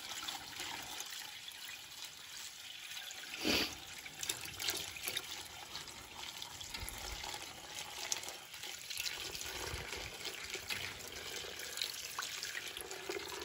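Maple sap pouring from a plastic bucket through a coffee filter into a stainless steel pot: a steady splashing trickle. A single brief knock about three and a half seconds in.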